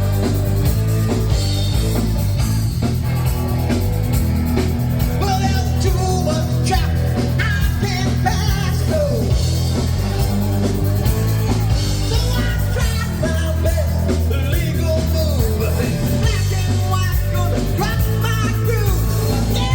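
Loud rock music with singing, over a steady heavy bass.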